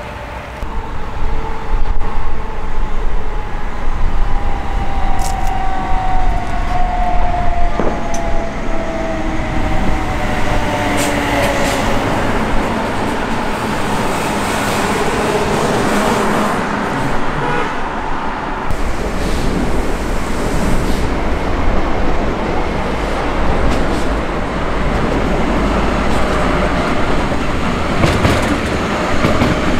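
Meter-gauge electric train running close by: it swells in about a second in with a falling motor whine over the first several seconds, then a steady rush of wheel and running noise with scattered clicks.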